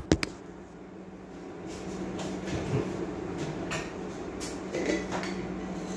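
A sharp clatter at the very start, then a steady low kitchen hum with scattered light knocks and clicks, as of kitchenware being handled.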